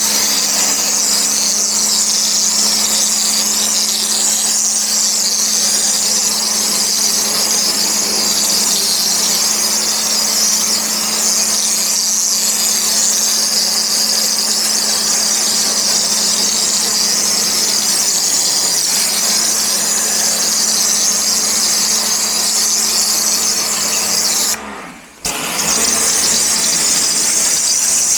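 Pressure washer spraying: a loud, steady hiss of water over the pump motor's steady hum. It cuts out briefly about 25 seconds in, then starts again.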